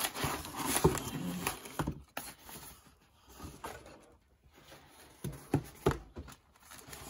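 Crumpled kraft packing paper and a cardboard shipping box rustling and crackling as they are handled, for about two seconds. Later come a few light knocks of a cardboard box against a wooden desktop.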